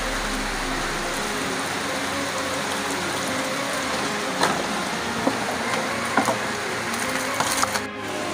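A steady hiss of water-like noise, as from rain or splashing water, with a few light knocks about halfway through and near the end.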